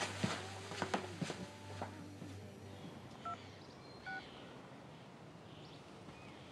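Two short touch-tone keypad beeps from a smartphone as a phone number is dialled, a little under a second apart near the middle, after a few faint knocks.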